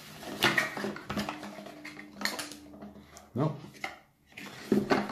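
Clear plastic bags of dash-cam parts and cable being handled and rummaged through, with irregular crinkling and small clicks and taps of the parts against a table.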